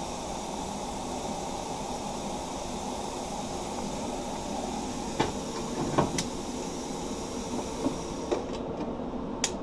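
Eastwood 40-amp plasma cutter hissing steadily as it cuts through rusty quarter-inch steel plate, with a few sharp metallic ticks late on. The top of the hiss drops away near the end.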